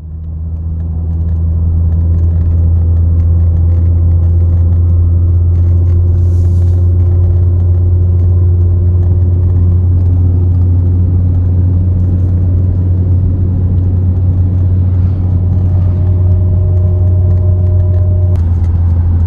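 Steady low drone of engine and tyre noise inside a Renault Safrane's cabin at a constant cruising speed, fading in at the start.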